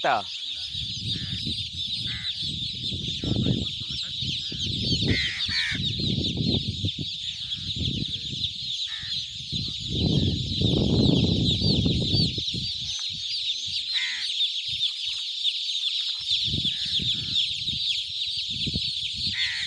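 A mass of thousands of young chicks peeping all at once, a dense, unbroken high-pitched chorus. Irregular low rumbles come and go beneath it.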